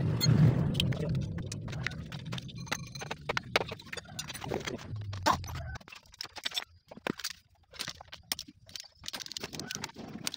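Metal hand tools clicking and clinking against a Yamaha Vega ZR's engine parts during disassembly: an irregular scatter of sharp taps. A low rumble runs under the first half and cuts off suddenly about six seconds in.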